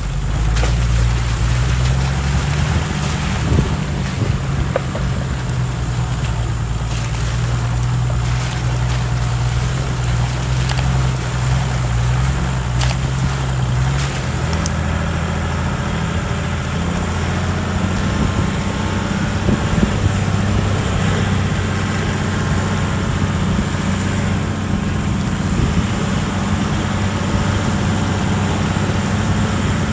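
Off-road vehicle engine running steadily under a constant hiss. The engine note changes about halfway through.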